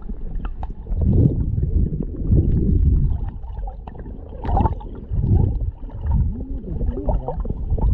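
Muffled low sloshing and gurgling of water against a camera held underwater in shallow sea, swelling and fading in uneven surges, with small clicks.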